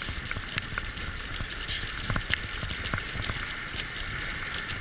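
Wheeled dog-racing rig rolling fast over a forest trail behind a six-dog team, rattling steadily with many small clicks and ticks from the wheels and frame.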